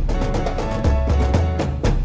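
Music soundtrack with a steady drum beat and a deep bass line that repeats a short figure.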